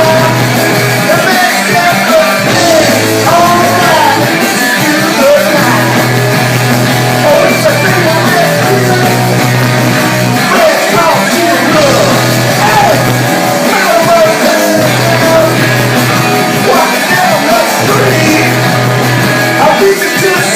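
Garage punk band playing live, with electric guitar, bass and drums at a steady loud level and a lead singer's vocals over them.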